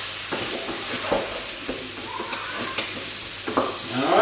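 Vegetables frying and sizzling in a hot pan at maximum heat, with scattered short knocks and scrapes from the pan and a utensil as the vegetables are stirred.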